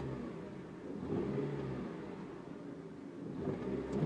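1998 Honda Civic GX running on compressed natural gas, with a wavering low hum that swells about a second in and again near the end. The noise comes from its high-pressure fuel regulator (IMPCO HPR3600), whose membranes can make this noise with age.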